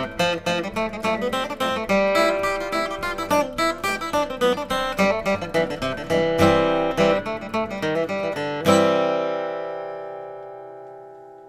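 Closing music on acoustic guitar: quick plucked notes, ending on a final chord about nine seconds in that rings on and slowly fades out.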